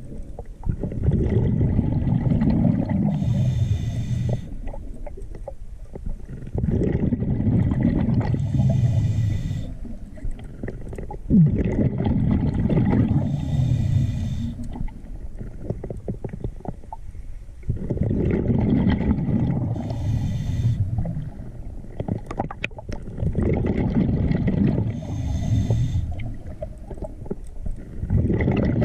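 Scuba diver breathing through a regulator underwater: a short hiss on each inhale, then a longer gurgling rush of exhaled bubbles, repeating every five to six seconds.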